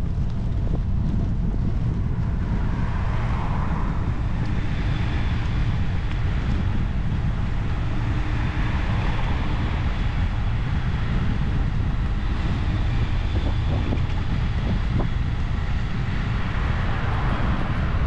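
Wind rumbling steadily on the microphone of a camera on a moving bicycle, with road traffic in the background. Near the end a car overtakes close by, and its tyre noise swells.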